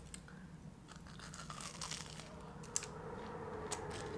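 Faint crunching and small crackles of a crispy, cinnamon-sugar-coated fried apple pie crust being handled and bitten into, a little louder near the end.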